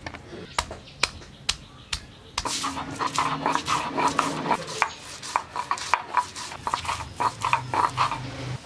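Stone muller on a shil-pata grinding slab crushing ginger and garlic: a few sharp knocks as the cloves are pounded, then from about two and a half seconds in a steady, rhythmic rasping scrape as the muller is rocked back and forth over the stone, grinding them to paste.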